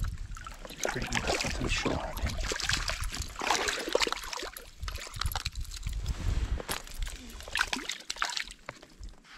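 River water splashing and sloshing irregularly as a hooked trout is brought in and landed.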